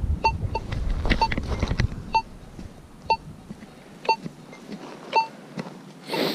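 AKA Signum MFD metal detector giving short, high beeps about once a second as its coil passes back and forth over a buried target in black sand. A low rumble fades out in the first two seconds, and a brief rush of noise comes near the end.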